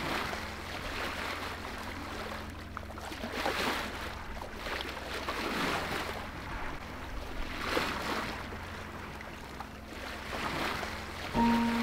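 Sea water rushing and washing along a sailboat's hull in swells every two to three seconds, over a steady low rumble. Music begins near the end.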